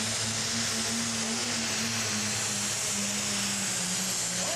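Ford pulling tractor's engine running flat out under full load while pulling the sled: a steady drone with a high whine and hiss over it, the engine note sagging slightly about three seconds in.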